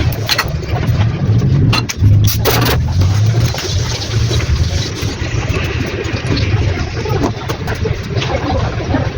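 Car engine running steadily, with scattered sharp clicks over it.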